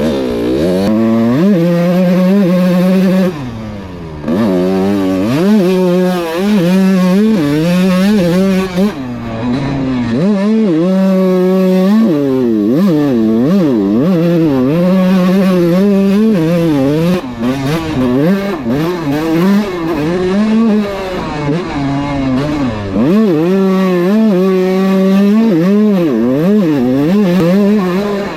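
Kawasaki KX125 single-cylinder two-stroke dirt bike engine being ridden hard, revving up and dropping back again and again as the rider works the throttle and shifts. The pitch climbs and falls in repeated surges, with a brief let-off about four seconds in.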